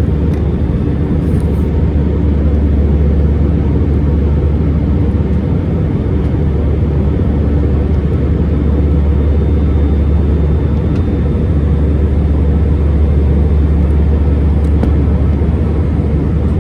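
Steady cabin noise inside an Airbus A319 airliner in its climb: an even drone of engines and airflow, heaviest in the low range.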